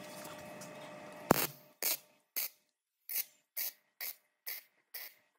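Electric arc welder tack-welding a steel tube: a sharp crack as the arc strikes about a second in, then a string of short bursts of arc noise, about two a second, as the arc is struck and broken again and again.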